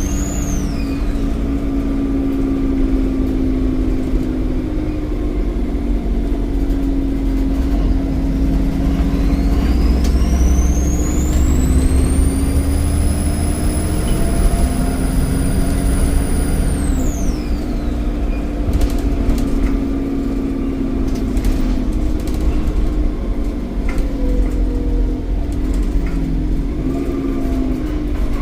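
Volvo D7E 7.1-litre diesel engine of a Volvo B7RLE bus running under load, with a high turbocharger whistle. The whistle fades at the start, then rises again about a third of the way in, holds high for several seconds and dies away as the engine comes off load.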